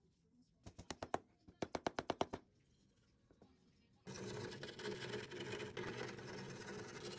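A quick run of sharp light taps in two bursts as wooden pins are fitted into a small wooden toy frame. About four seconds in, a scroll saw starts running steadily with a low hum, cutting wood.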